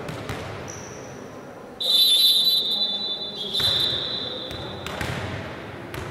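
A referee's whistle blown in one long, steady high blast starting about two seconds in and lasting about three seconds, with a slight step down in pitch about halfway. A ball thuds a few times around it.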